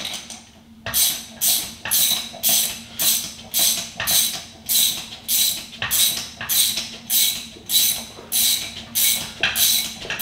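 Ratchet wrench cranked back and forth in steady strokes, about two a second, each stroke a quick metallic rattle of clicks, starting about a second in, over a faint steady hum.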